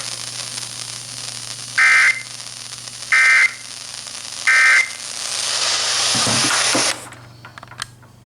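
NOAA Weather Radio end-of-message signal: three short bursts of EAS/SAME data tones, about 1.3 seconds apart, closing the tornado warning. Radio static hiss runs under them, swells, then cuts off about seven seconds in, followed by a few faint clicks.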